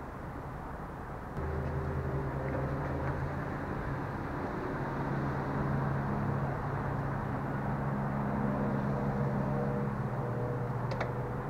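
Infiniti G35 coupe's V6 engine running with a steady low hum that steps up in level about a second in, as the front wheels are steered toward full lock on the new angle kit. A brief sharp click near the end.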